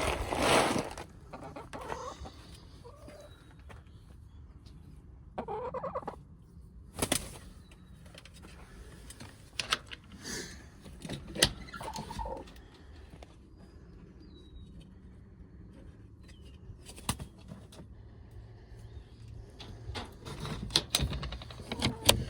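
Chicken hens clucking and calling now and then, with a few sharp clicks and knocks in between.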